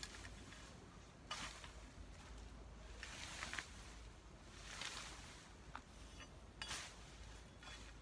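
Cut weeds and vines rustling as they are raked and dragged with a long-handled hoe, a faint swish every second or two.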